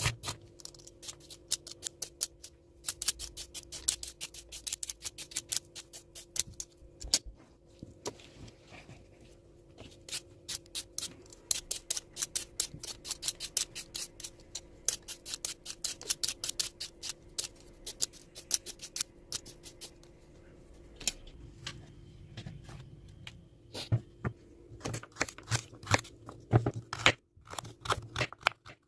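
Knife chopping quickly on a cutting board, in runs of rapid strokes, about eight to ten a second, broken by short pauses, over a steady low hum.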